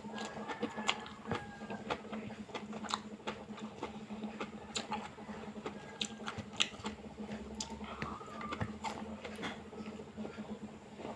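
A person chewing fiddlehead fern salad and rice with open-mouthed smacking: a run of sharp, wet clicks and smacks, over a steady low hum.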